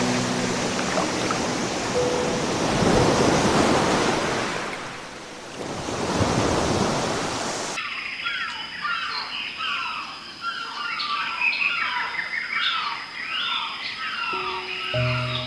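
A steady rushing noise, like running water, for about the first eight seconds. It cuts off suddenly to a flock of small birds chirping busily over a faint, steady high tone. Piano music comes back in at the very end.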